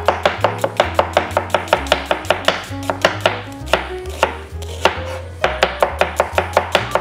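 Chef's knife thinly slicing a red onion on a plastic cutting board: quick, even knocks of the blade striking the board, about four a second.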